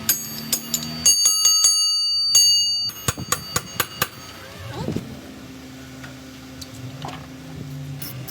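Rapid hammer blows on steel parts, about four a second, each leaving a metallic ringing; the blows stop about four seconds in, leaving a low steady hum.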